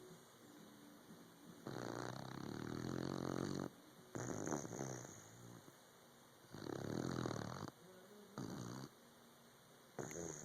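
Sleeping puppy snoring in slow, even breaths, each a longer snore followed by a shorter one, with quiet pauses between.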